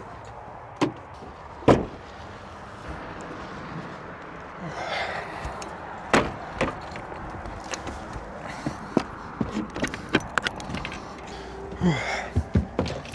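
Doors and footsteps getting into a truck camper: scattered knocks and thumps, a sharp one about two seconds in and a quick run of knocks near the end, over steady background noise.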